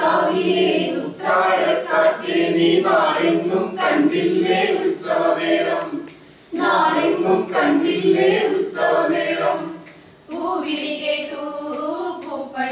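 A group of women singing an Onam song (Onappattu) in Malayalam in unison, the lead voice through a microphone, without instruments. The singing comes in phrases with short breaths between them, the longest break about six seconds in.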